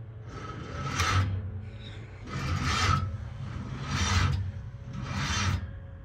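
Box Chevy's starter motor cranking the engine slowly in four labored, raspy surges about a second apart, the battery too weak to spin it over; the engine does not fire.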